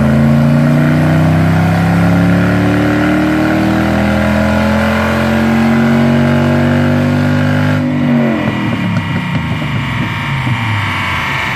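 Dodge Challenger's 5.7-litre Hemi V8 making a full-throttle pull on a chassis dyno, its note climbing steadily for about eight seconds. Then the throttle closes and the revs fall away.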